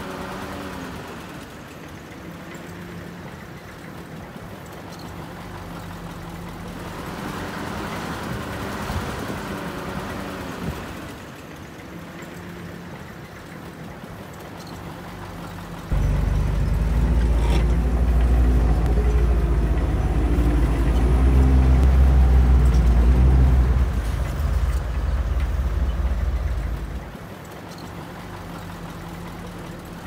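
Heavy diesel engines of earthmoving machinery running steadily. About halfway through, a much louder, deep engine rumble starts abruptly, holds for about ten seconds, then drops back.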